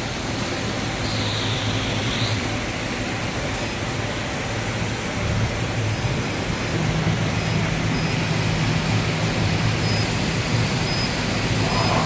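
Cable twisting machinery running: a steady, loud rushing noise with a low hum, the hum shifting a little higher about seven seconds in. A faint brief whine rises and falls about a second in.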